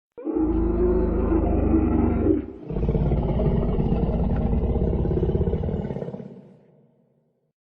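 Dinosaur roar sound effect: two deep, rumbling roars, the first about two seconds long, the second longer and fading out.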